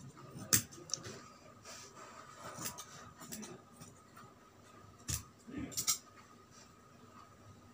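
Scissors snipping through thin cotton fabric: a few sharp blade clicks, the loudest about half a second in, and a quick run of snips around five to six seconds.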